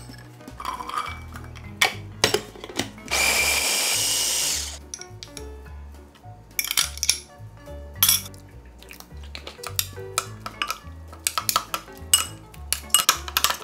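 Metal spoons clinking and scraping against a small glass bowl as a sauce is mixed, with quick clicks near the end while it is stirred. A steady rushing noise lasts about a second and a half a few seconds in. Background music plays throughout.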